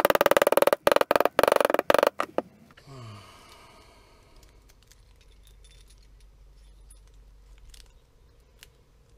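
Soft mallet tapping a new gear wheel down onto a Ducati 848 gearbox shaft: a quick run of metallic-ringing taps for about the first two and a half seconds, then faint handling of the parts.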